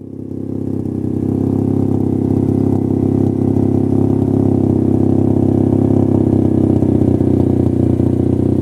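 A car engine running steadily, fading in over about the first second and then holding an even, fast-pulsing note.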